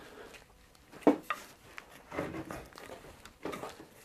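A dry-fitted wooden chair back post being twisted and pulled out of its tight-fitting hole in the seat: one sharp wooden knock about a second in, then softer wood-on-wood rubbing sounds.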